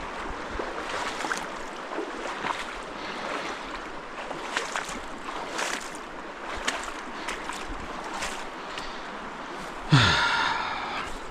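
Stream water running, with irregular splashes and sloshes of a person wading through it. About ten seconds in comes a sudden louder sound with a falling pitch.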